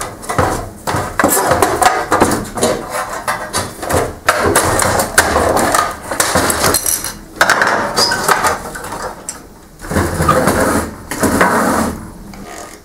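Sheet-metal shielding and plastic chassis parts of an HP LaserJet 6P laser printer being bent, pried and pulled apart by hand: irregular clatter and rattling with sharp knocks, pausing briefly now and then.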